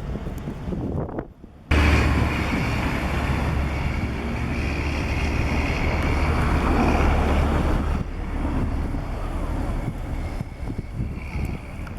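Strong wind buffeting the microphone in a blowing snowstorm, a heavy low rumble mixed with city traffic noise. It drops out abruptly for a moment about a second and a half in, then comes back loud and eases a little near the end.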